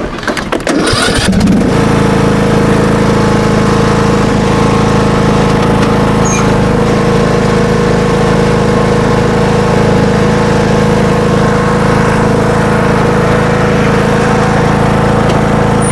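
John Deere D105 lawn tractor engine starting about a second and a half in, then running steadily at a constant speed as the tractor drives.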